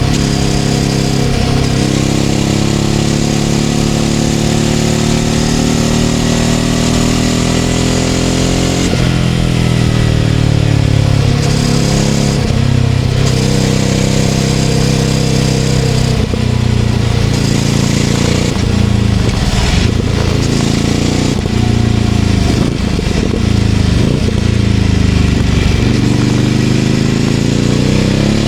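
Ducati Scrambler 800's air-cooled L-twin engine through a Leovince LV-10 exhaust, heard riding along. The engine note falls off as the bike slows, jumps back up about nine seconds in, and climbs again near the end as it accelerates.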